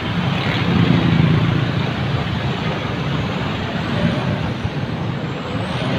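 Steady road traffic: cars and motorcycles driving past on a busy multi-lane road, a little louder about a second in.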